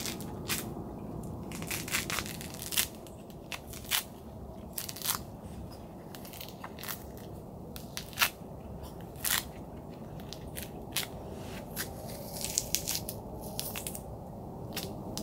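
Peel being torn off an orange by hand: irregular sharp snaps and crackles as the rind and pith pull away, with a quick flurry of them about three-quarters of the way through. A steady low hum runs underneath.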